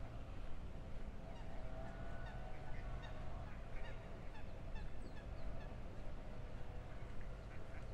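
Geese honking repeatedly over a low steady rumble, the calls thickest in the middle of the stretch.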